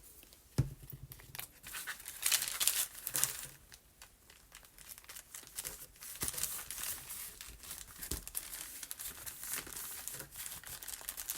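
Paper rustling and crinkling in irregular bursts as a sheet is handled and pressed into a glued pocket, with a couple of light knocks on the work surface.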